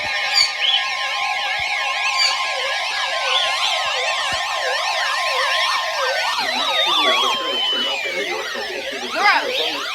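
Electronic siren-like warbles, several layered together, over a steady tone near 1 kHz that cuts off about six seconds in: an emergency alert's attention tone, as sent before a weather-radio warning message. A few slow falling tones sweep down through the middle.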